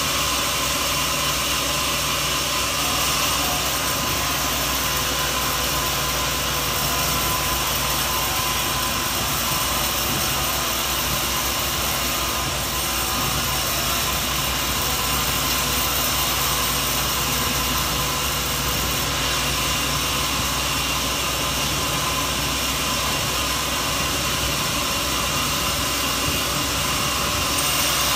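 Sawmill machinery running steadily: an even mechanical drone with a few faint steady tones, holding the same level and pitch throughout.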